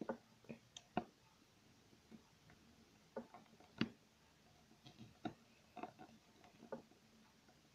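Faint, irregular small clicks and taps of a plastic Littlest Pet Shop toy figure being handled and set on a hard tabletop, the sharpest about a second in and just before four seconds in.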